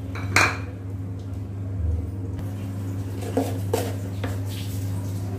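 A spatula knocks against a nonstick kadhai of masala gravy: one sharp clack about half a second in, then a few lighter taps later on. A steady low hum runs under it.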